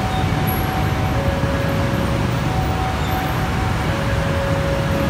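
Steady low rumble of moving vehicles, with faint steady tones that come and go.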